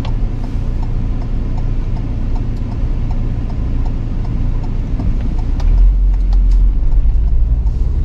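Car interior noise while driving slowly: a steady low engine and road rumble under the hiss of the air conditioning, which is loud enough to be heard in the recording. The rumble swells about six seconds in.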